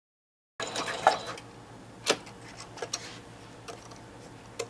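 Home sewing machine stitching for under a second after half a second of dead silence, then stopping. About five scattered sharp clicks and knocks follow, the loudest two early on, as the 3D-printed plastic pleat rack and fabric are handled at the machine.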